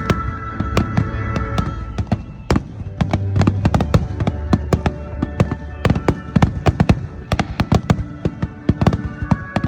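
A fireworks finale: a dense, rapid run of sharp bangs and crackles from aerial shells bursting close by, over music.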